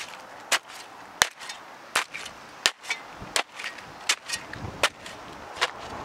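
Fresh kitchen scraps and fruit in a compost pile being chopped up with a hand tool: a steady run of sharp strikes, roughly one every three-quarters of a second.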